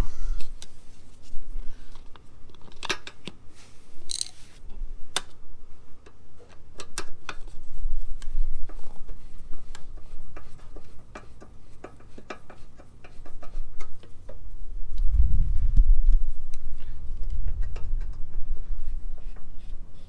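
Small clicks and taps of a turn-signal lens and its metal trim ring being handled and seated in a chrome bumper, its screws threaded in by hand. A low rumble rises about two-thirds of the way through and is the loudest sound.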